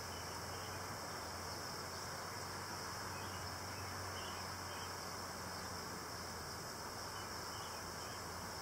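Steady hum of honeybees around an open hive box, under a constant hiss.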